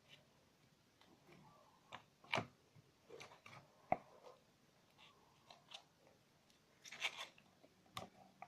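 Slime being squished and stretched by hand, giving faint, irregular sticky squelches and crackles, with a sharp click about four seconds in.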